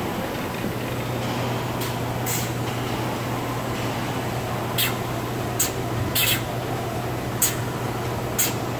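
Automated assembly machine running with a steady low hum. Short sharp hisses of compressed air from its pneumatic valves and cylinders come about seven times at uneven intervals, most of them in the second half.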